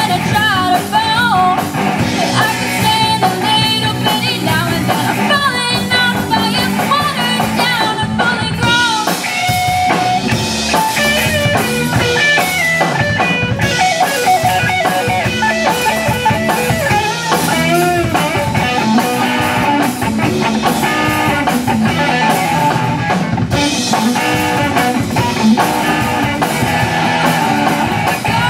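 Live amplified rock band playing a song: a girl singing lead over electric guitar, electric bass and a drum kit.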